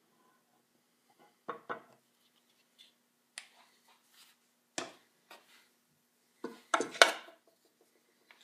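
Objects being handled on a metal workbench top: a scattering of sharp knocks and clatters, with the loudest cluster of several quick knocks about six and a half to seven seconds in.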